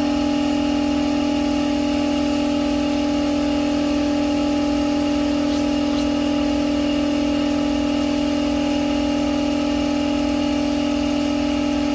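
Shop air compressor running steadily: an even, unchanging motor hum.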